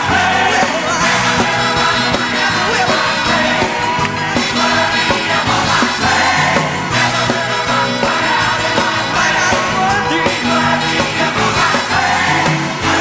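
Live gospel music: a group of voices singing together over instrumental accompaniment with a steady beat.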